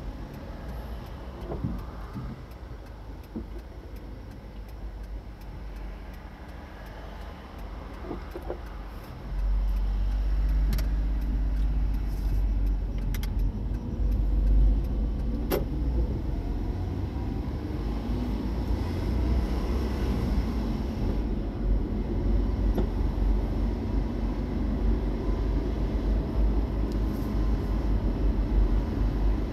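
A car driving, a steady low rumble that steps up in level about nine seconds in and stays louder, with a few short clicks.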